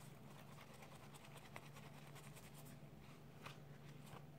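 Faint rubbing and scratching of a dry paper towel being worked over a smartwatch's bezel, with a few light ticks, over a low steady hum.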